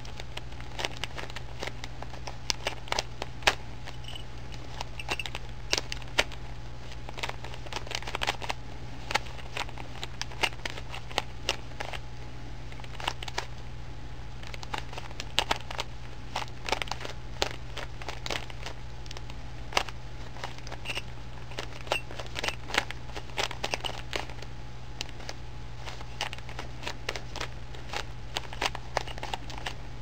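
3x3 Rubik's Cube being solved by hand: its plastic layers turned in quick, irregular runs of clicks and clacks. A steady low hum runs underneath.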